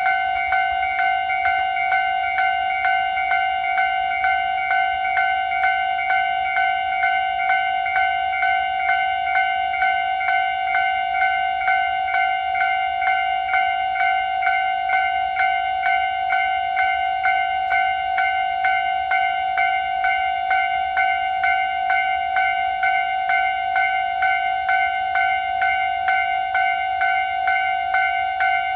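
Japanese level-crossing electronic warning bell ringing over and over at a fast, even pace, a ding on fixed pitches. It is the alarm of a crossing held closed while trains move through.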